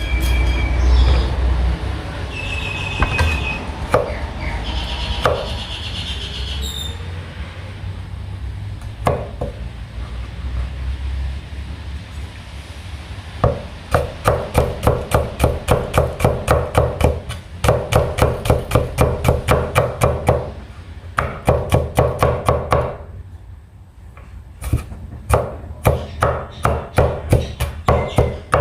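Kitchen knife chopping on a wooden cutting board: runs of quick, even strokes, about four a second, separated by short pauses, starting about halfway in. Before that, a few scattered knocks.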